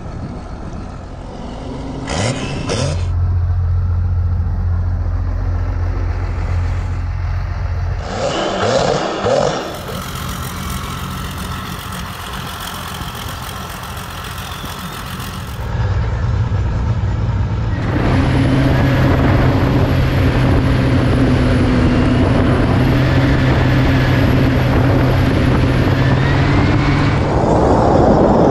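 Cummins diesel engine of a speed boat running, in several stretches: a steady low note, brief rises in pitch about two and nine seconds in, then a louder steady run from about halfway on.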